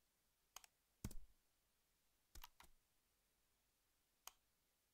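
A few faint, scattered clicks of a computer mouse and keyboard, about four in all, the strongest about a second in, over near silence.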